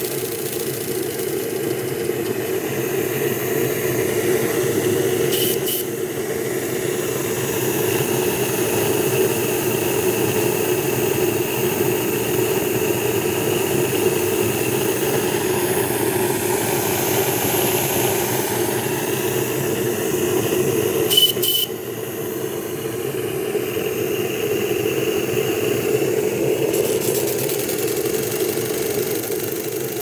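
Homemade steam engine running steadily on a gas-fired boiler, driving a small generator that lights a bulb, with steam escaping around the pipework. Two brief double clicks come about five seconds in and again about twenty-one seconds in.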